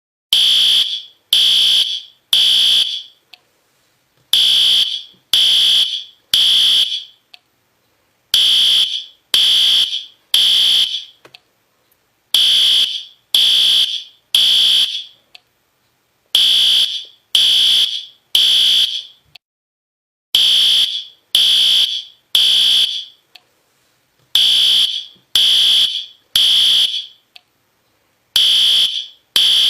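System Sensor P2R fire alarm horn strobe sounding loud, high-pitched horn beeps in groups of three, repeating about every four seconds: the temporal-three pattern that signals building evacuation.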